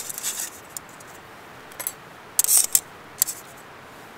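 Thin metal fire sticks clicking and scraping against the panels of a folded metal camp stove as they are set along its hinge, in a few short bursts, the loudest about two and a half seconds in.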